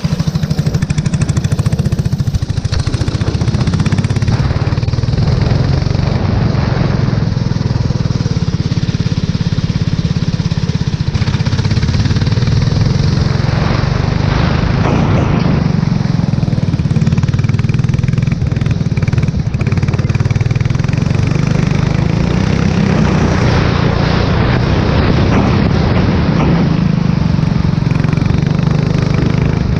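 Formula 4 single-seater racing car's engine running hard at speed, its note rising and falling as the car accelerates, brakes and changes gear.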